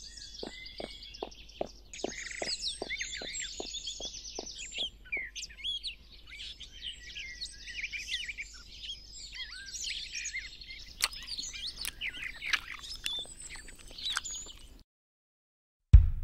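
Small songbirds chirping and twittering, many short calls and trills overlapping. In the first few seconds a run of faint, regular taps, about three a second, sounds under them and fades away; all sound cuts out shortly before the end.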